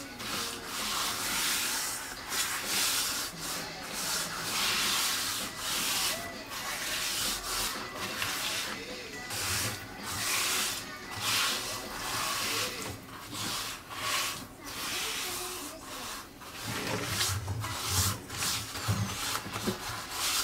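A rubber-gloved hand scrubs a gritty paste of coffee grounds, baking soda and liquid soap over the burnt underside of a pan, making a rasping scrub in repeated back-and-forth strokes.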